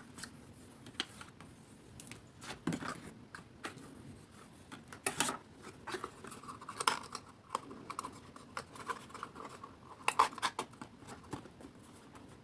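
Card being handled and pressed down with a bone folder: scattered light taps and clicks with stretches of paper rubbing and scraping, the sharpest taps about five and ten seconds in.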